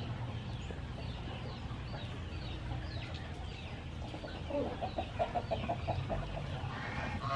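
Chicken clucking, with a quick run of clucks at about five a second starting about halfway through.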